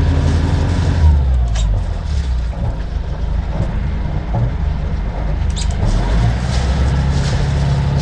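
The sailboat's inboard diesel engine running in reverse as the boat starts backing, a steady low engine note that changes about a second in. Two short clicks are heard, one early and one a few seconds later.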